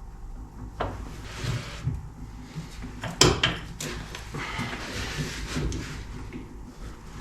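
Scattered knocks and rubbing of a wooden handle blank and tools being handled at the bench, with one sharp knock about three seconds in the loudest.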